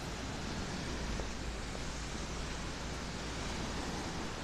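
Steady rush of small lake waves breaking on a sandy shore, mixed with wind, and a low rumble from wind on the microphone.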